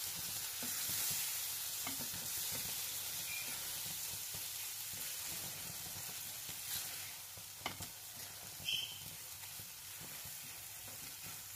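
A wet egg-and-tomato masala sizzling in a non-stick frying pan over high heat while a silicone spatula stirs it. The steady hiss is broken by a few sharp clicks and pops about two-thirds through.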